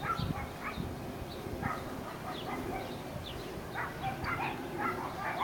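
Dogs yapping and yipping in short, sharp calls that come faster near the end.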